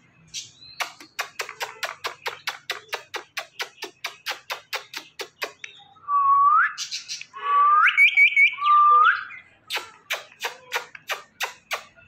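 A quick, even run of kissing smacks, about five a second, then three or four rising whistles and a few more smacks, made with pursed lips to a pet Indian ringneck parakeet.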